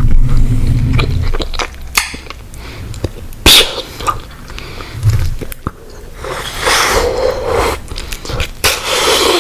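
Bubble gum sound effect: wet chewing and smacking with many small clicks, and a sharp loud snap about three and a half seconds in.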